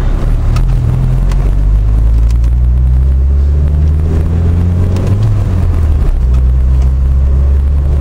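1984 Mazda 626's four-cylinder engine running while driving, heard from inside the cabin as a loud low drone. Its pitch climbs slowly, then falls back about five seconds in.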